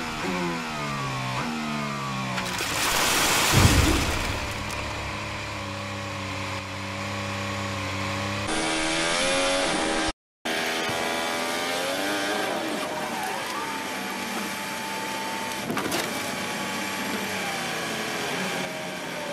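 Onboard sound of a Formula 1 car's turbo V6 engine changing up through the gears, then a loud, noisy crash about three seconds in, after which the engine holds a steady note. After a short break, a second F1 car's engine note falls as it brakes and shifts down, and a sharp impact comes near the end as it hits the barrier.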